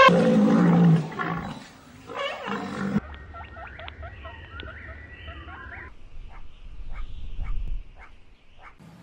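African elephant calling: a loud trumpet ends in a lower, rough roar about a second in, and a second, shorter call follows about two seconds in. After that, softer high chirps, then a run of sharp clicks over a low rumble.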